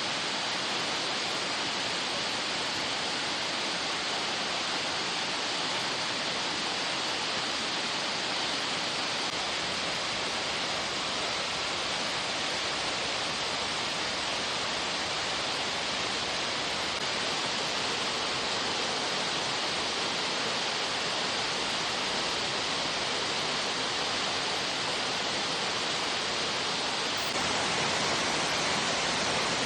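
Waterfall pouring steadily, a constant rushing hiss of falling water that gets a little louder near the end.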